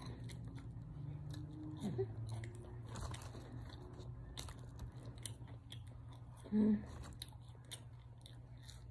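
Close-up chewing of French fries: soft mouth clicks and small crunches over a steady low hum. One short, louder hum-like voice sound comes about two-thirds of the way through.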